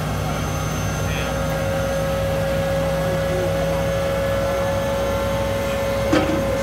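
M1A2 Abrams tank's Avco Lycoming AGT1500 gas turbine running with a steady aircraft-like whine over a dense rushing noise. A single short knock sounds near the end.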